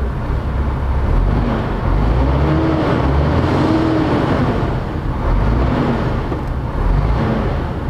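Diesel engine of a new MAN TGX truck, freshly started and running with a steady low rumble.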